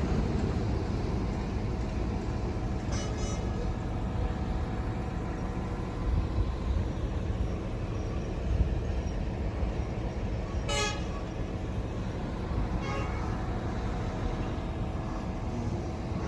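Road traffic running steadily with a low rumble, broken by three short vehicle horn toots spread across the stretch, the middle one the loudest.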